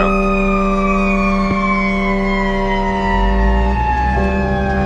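A fire engine's mechanical Q siren winding down, its wail falling slowly and steadily in pitch. It is heard from inside the cab over the steady drone of the truck's Cummins M11 diesel engine.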